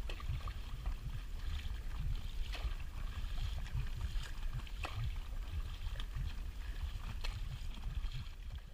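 Paddling an inflatable kayak on open water: water sloshing with a sharp splash about every two and a half seconds, under a heavy low rumble of wind buffeting the microphone.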